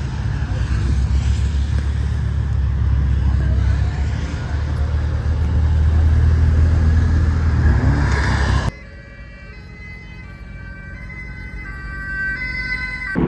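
Engines of a slow convoy of sports cars and hot hatches rumbling as they roll past. About two-thirds of the way through, the sound cuts off abruptly to a quieter passage of steady high tones that shift in pitch and grow louder toward the end.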